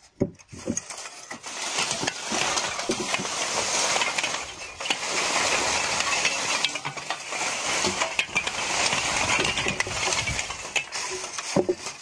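Pieces of freshly made wood charcoal being pulled out and tumbling against each other: a dense, continuous clinking and rattling with many sharp chinks, building up about a second and a half in and easing near the end.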